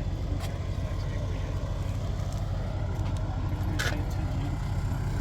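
A steady low rumble with faint voices, a few light clicks, and a short hiss about four seconds in.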